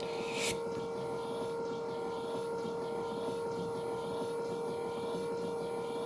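Nice Home Aria 401 ram-type gate opener's electric motor running steadily, driving the trolley along its lead screw toward the closed position, with a steady single-pitched whine. A short hiss sounds just at the start.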